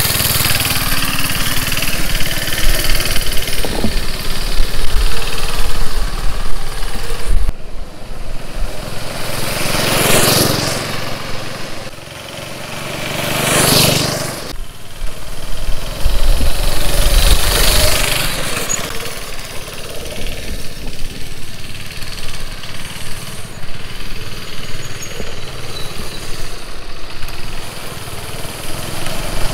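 Go-kart's small single-cylinder Briggs & Stratton engine running as the kart is driven along the street, swelling loud twice, about ten and fourteen seconds in, then fading.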